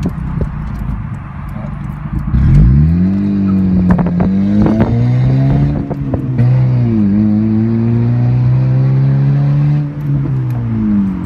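Honda Civic engine and exhaust, fitted with an electric exhaust cutout. The pitch falls, climbs about two and a half seconds in and holds steady, dips briefly around seven seconds, then falls away near the end.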